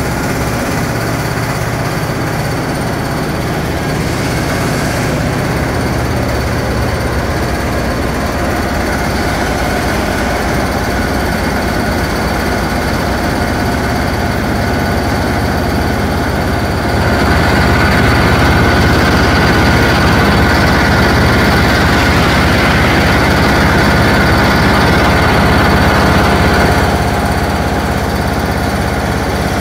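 Inclined vibrating screen running empty on a vibration test: a steady, loud mechanical hum with a fast, dense rattle from the vibrating deck. It grows louder and brighter about halfway through, then falls back a little before the end.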